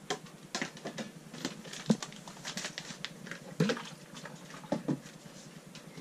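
Plastic spray bottles and containers of cleaning supplies being lifted out of a cabinet and set down, giving a string of irregular light knocks and clatters, a few of them louder.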